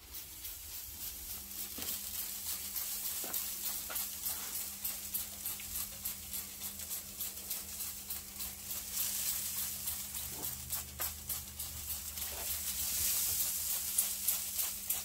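Hand-pump trigger spray bottle spritzing a pork shoulder on a drum smoker: many quick squirts in a row, each a short hiss, coming thickest near the end.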